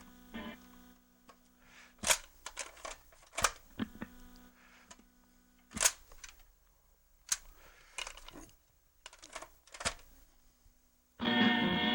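Plastic 8-track cartridge being pulled out of and pushed back into a Delco T400 car 8-track player: a series of separate sharp clicks and clunks, with a faint steady hum between some of them. Music starts playing near the end as the tape engages.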